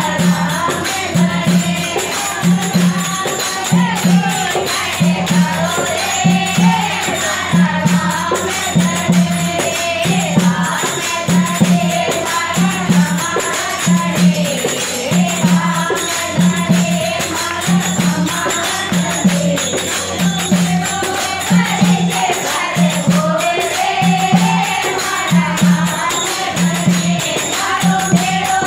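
A group of women singing a Rajasthani devotional bhajan to Ramdevji in unison. A dholak drum keeps a steady low beat about once a second, under jingling hand percussion and clapping.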